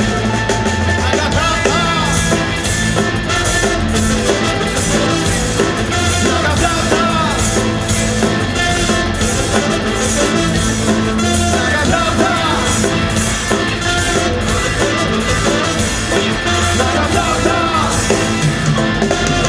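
Live reggae band playing, with a saxophone and trumpet horn section over electric guitars, keyboard, bass and drum kit, and a singer's voice.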